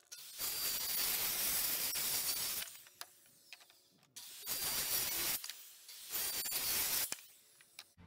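Corded circular saw cutting through a wooden board in three runs: a long cut of about two and a half seconds, then two shorter cuts of about a second each.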